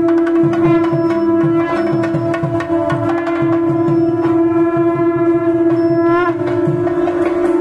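A conch shell (shankha) blown in one long steady note, over rhythmic drumming and percussion.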